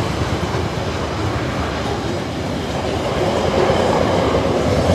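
Freight train wagons rolling past, a steady loud rumble and clatter of steel wheels on the rails.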